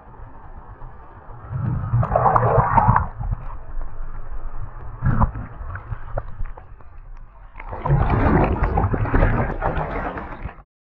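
Sea water sloshing and washing around, heard from right at the surface and muffled. It surges loudly about two seconds in, gives a sharp splash about halfway, and surges again near the end before cutting off.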